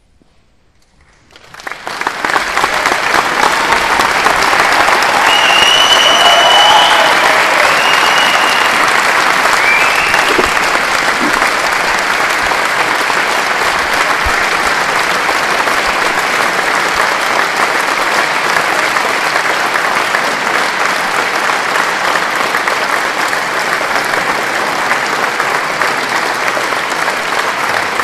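Concert audience applauding. It starts out of near silence about a second and a half in, swells quickly and then holds steady, with a few whistles in the first part.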